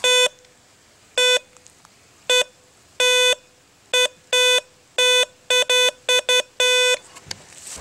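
Garrett Treasure Ace 100 metal detector beeping about a dozen times in an irregular run of short and longer buzzy tones at one steady pitch as it is swept over the ground: it is signalling buried metal under the leaves.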